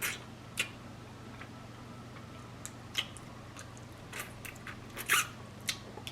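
Close-up eating sounds: chewing, with scattered sharp clicks and cracks of crab shell being bitten and broken apart, the loudest a little after five seconds in. A low steady hum runs underneath.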